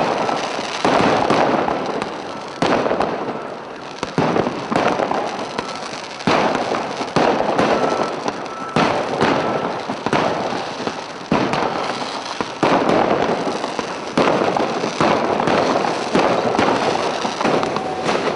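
Firecrackers going off in a string of loud bangs, about a dozen spaced a second or two apart, each dying away over about a second.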